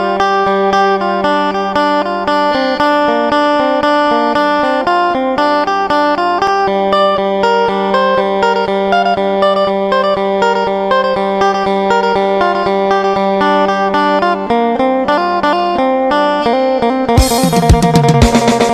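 Phin, the Thai plucked lute, playing a quick picked melody over a steady drone note. Drums and percussion come in near the end.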